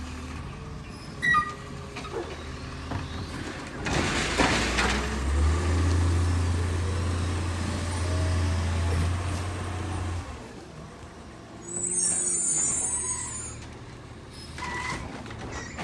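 Natural-gas Labrie Automizer side-loader garbage truck at work. There is a sharp knock about a second in and a loud burst of air hiss a few seconds later. The engine then revs up and holds steady for about five seconds before dropping back, typical of it powering the automated arm's hydraulics. Another air hiss, high and hissy, comes past the middle.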